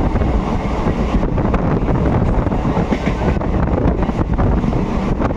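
Black Diamond Express passenger train running on the rails, a steady dense rumble of wheels and coaches, with wind buffeting the microphone.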